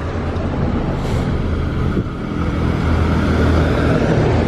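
Street traffic: a motor vehicle's engine running close by under road noise, growing louder in the second half.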